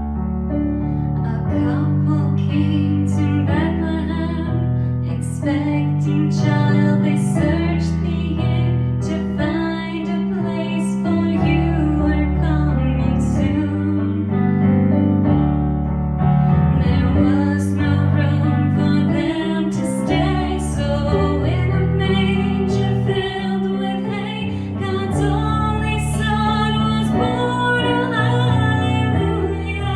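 Instrumental music: sustained chords over a slowly changing bass line, with clearly struck notes above.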